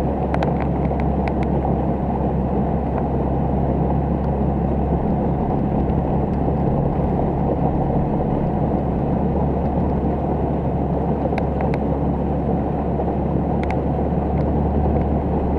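Motorboat engine running at a steady speed, with water and wind rushing past the microphone and a few faint ticks.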